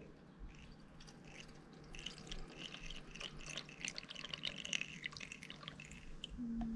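Water poured from a plastic measuring jug through a plastic funnel into a steam cleaner's water tank: a faint trickle and splash that picks up about two seconds in and eases off near the end.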